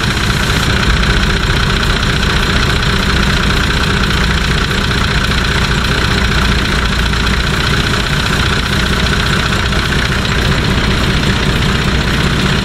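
Nissan TD42 straight-six diesel idling steadily with its new UFI clutch fan spinning and humming as it pulls air through the radiator.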